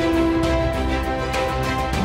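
Background music: held melodic notes changing every half second or so over a steady low bass.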